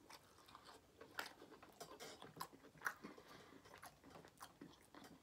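Faint close-up chewing of barbecued rib meat, with irregular sharp mouth clicks every half second or so.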